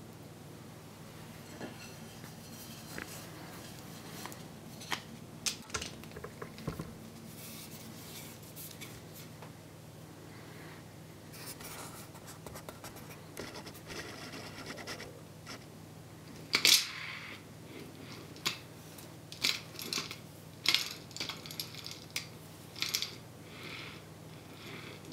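Steel two-row self-aligning ball bearing being handled, giving scattered metallic clicks, clinks and light scraping as the rings, balls and cage move against each other. The loudest clatter comes about two-thirds of the way in, followed by a run of sharper clinks.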